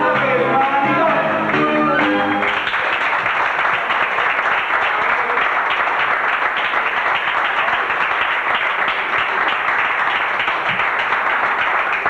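Singing with music ends about two and a half seconds in, and a group of people then applauds steadily.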